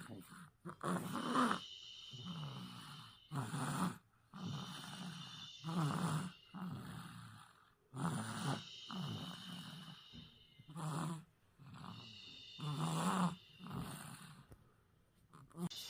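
A baby of about seven and a half months snoring in sleep: a short, rough snore on each breath, about one every two to two and a half seconds.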